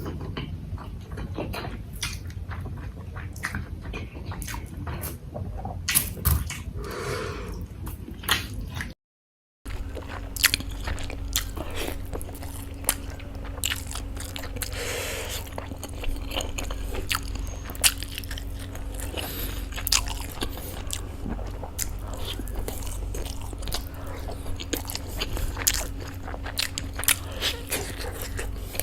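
Close-miked eating sounds of momos: biting and chewing with many short wet clicks and smacks, over a steady low hum. The sound drops out briefly about nine seconds in.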